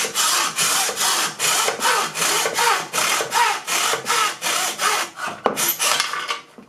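Hacksaw cutting through a 10 mm carbon fibre tube in a plastic mitre box, with even back-and-forth strokes at about three a second. There is a sharp click about five and a half seconds in, and the strokes stop just before the end.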